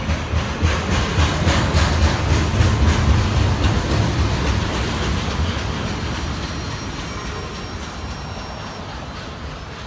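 Train rolling past: a low rumble with rapid regular clicks of wheels over rail joints, loudest a few seconds in, then fading steadily as it moves away. A faint thin high whine of wheel squeal comes in during the second half.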